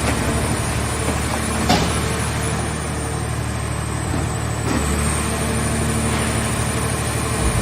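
Mobile hydraulic scrap car baler running steadily, its engine and hydraulic power unit humming, with a sharp metallic knock about two seconds in and another near five seconds.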